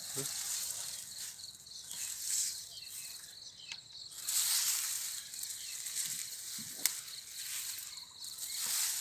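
Insects chirring outdoors, a steady high thin note, under swelling rustling noise, with a sharp click about seven seconds in.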